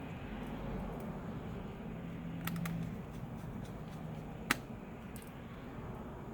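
Small screwdriver and tiny screws clicking and tapping as the replacement battery is screwed back into an HP Stream laptop: a quick double click about two and a half seconds in and a single sharper click about four and a half seconds in.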